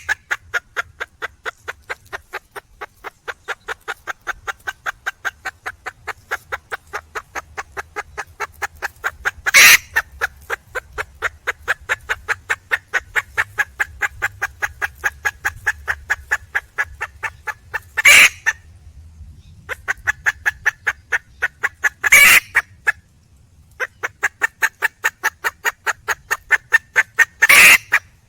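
Junglefowl hen giving a rapid run of clucks, about four a second, calling for a mate. Five louder, sharp squawks break in, about every four to nine seconds.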